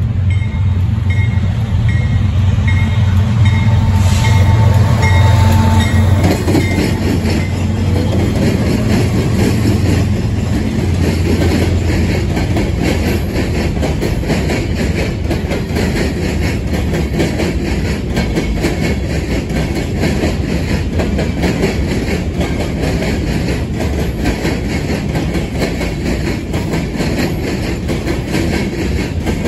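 Two BNSF GE diesel locomotives pass with a loud low engine drone over the first several seconds. A long string of sand-loaded covered hopper cars follows, its wheels banging in a fast, steady rhythm as they cross the railroad diamonds.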